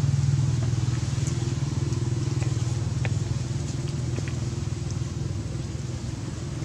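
A small engine running steadily with a fast, even pulse, slowly growing fainter.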